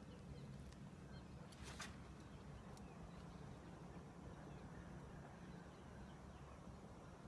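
Near silence: faint outdoor ambience with a steady low rumble, a few faint ticks and a brief rustle about a second and a half in.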